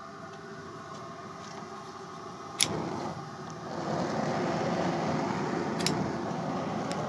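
High-pressure gas burner of a repaired industrial cooker. A sharp click comes about two and a half seconds in, then the flame noise builds over about a second to a louder, steady rush. Another click comes near six seconds.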